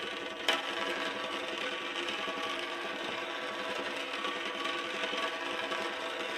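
Magnets rattling and buzzing rapidly against each other between the plexiglass sheets of a magnetic top, amplified through a djembe drum head, with one sharp click about half a second in.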